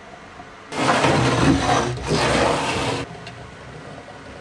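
Plastic wood-glue bottle squeezed along the edge of an OSB drawer frame, with glue and air squirting from the nozzle in two noisy bursts of about a second each, starting about a second in.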